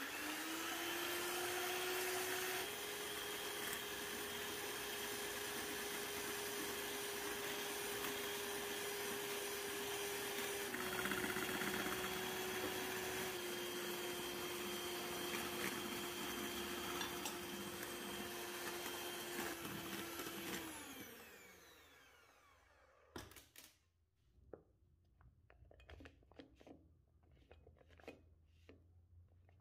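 Electric hand mixer whipping egg whites and sugar into meringue in a glass bowl: a steady motor whine whose pitch steps up and down a few times, winding down about twenty seconds in. Afterwards a spatula scrapes and taps lightly as the meringue is scooped into a piping bag.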